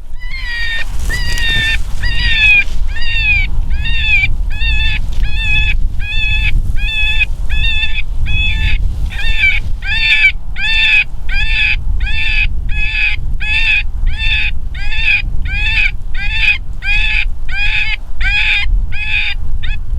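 Predator call sounding a high, pitched distress cry over and over, about three cries every two seconds, to lure coyotes. Wind rumbles on the microphone underneath.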